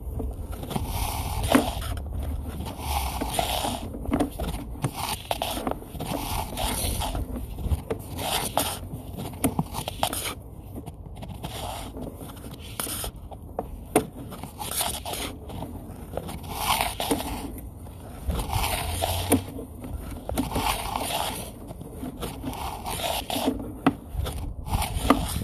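Sewer inspection camera's push cable being pulled back out of the pipe, scraping and rubbing in uneven pulls with scattered clicks.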